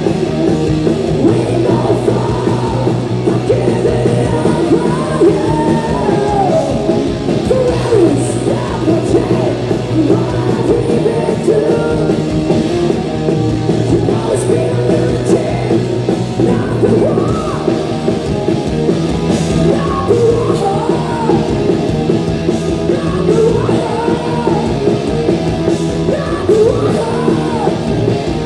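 Live hard rock band playing: electric guitars through Mesa amps and drums, with women singing and shouting into the microphones.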